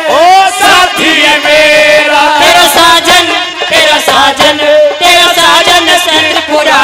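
Live Haryanvi devotional song (bhajan): a singer's voice through a PA system over instrumental accompaniment with steady held notes.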